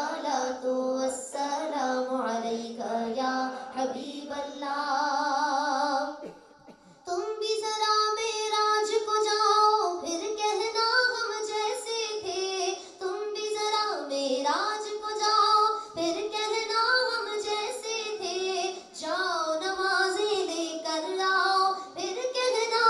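A woman singing an Urdu naat unaccompanied into a microphone, with long held notes and a wavering vibrato. She breaks off briefly about six seconds in, then carries on.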